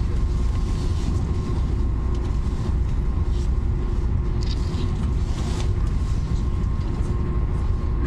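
Interior noise of an Italo AGV (ETR 575) high-speed train running in a tunnel: a steady low rumble with a constant hum over it.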